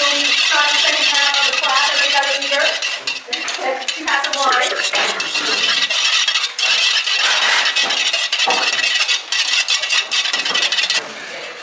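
Thin metal rod stirring melted candle wax in a stainless steel pouring pitcher, with many light clinks and scrapes of metal on metal. Voices talk in the background during the first few seconds.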